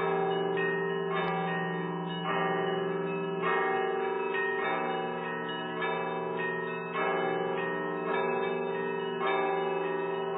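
Church bells change ringing: a peal of bells struck one after another at an even pace, about one strike a second, each tone ringing on into the next.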